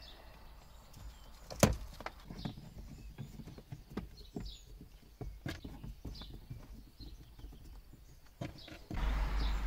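Scattered plastic clicks and knocks as interior trim clips are put back into place, with faint high chirps in the background. A louder low rumble comes up near the end.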